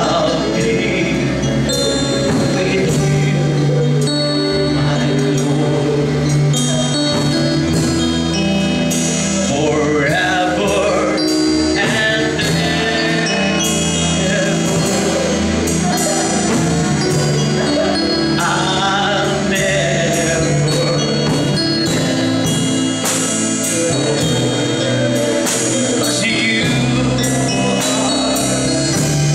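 Live gospel worship song: a man singing with a band, with drums keeping a steady beat under sustained chords.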